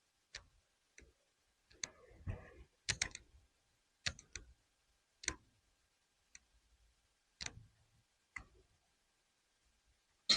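Scattered sharp clicks and light knocks at irregular intervals, about a dozen in all, a few with a dull thud: small hard objects being handled and set down.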